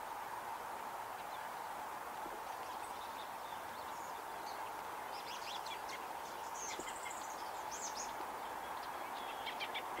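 Small songbirds calling: a scatter of high, thin chirps starting about four seconds in, with a short arching whistled note in the middle and a quick cluster of chirps near the end, over a steady background hum.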